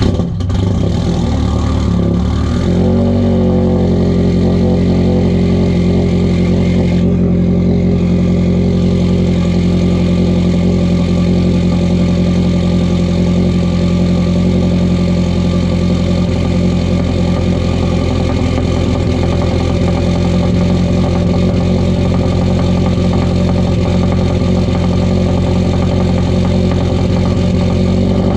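Subaru STI's EJ257 turbocharged 2.5-litre flat-four, just started, running unevenly for a couple of seconds and then settling into a steady idle, fed by a newly installed Hellcat fuel pump.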